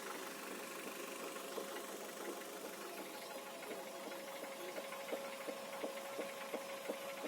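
Regular knocking from a car's raised, turning wheel assembly, about two to three knocks a second, clearer in the second half, over a steady engine hum. It is not the brake caliper, which has been removed; the owner suspects it comes through to the strut mount.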